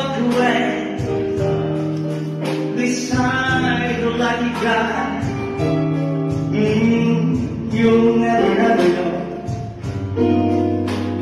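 Man singing a slow ballad into a microphone, his voice carried through a PA, with long held notes over guitar accompaniment.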